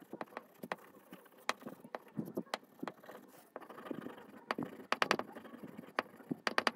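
A bar of blue polishing compound rubbed back and forth along the narrow strips of a sharpening strop: a dry scraping with many short clicks and knocks, several in quick succession about five seconds in and again near the end.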